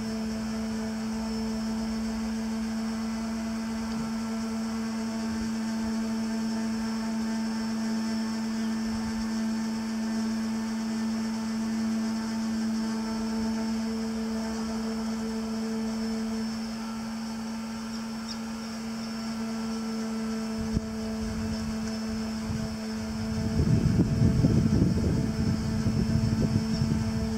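Steady hum of running machinery, a constant low drone with fainter steady tones above it. Near the end, a louder rough rumbling noise lasts a few seconds.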